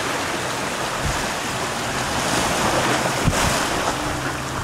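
Surf washing and breaking over jetty rocks, swelling somewhat about halfway through, with wind buffeting the microphone. A single short knock a little past three seconds in.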